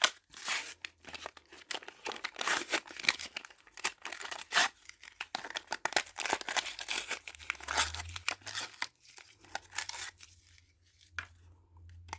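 Packaging being crinkled and torn by hand, in quick irregular crackles with short pauses, thinning out near the end.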